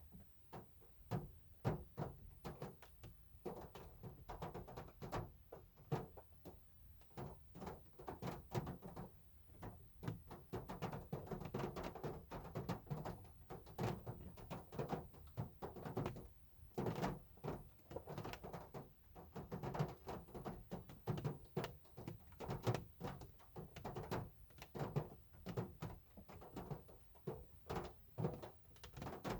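Hard rain falling on a car, a dense, irregular patter of individual drops striking the bodywork with dull thuds.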